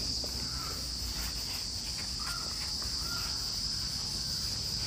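Steady, high-pitched chirring of crickets in the background.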